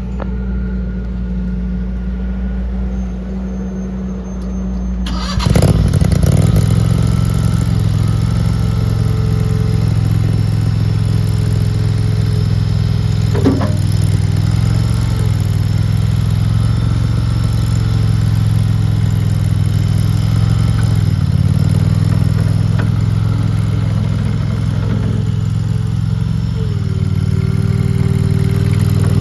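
Gas engine of a RODA RD380C mini skid steer loader catching about five seconds in, then running steadily. A single sharp knock sounds about halfway, and a whining tone rises near the end.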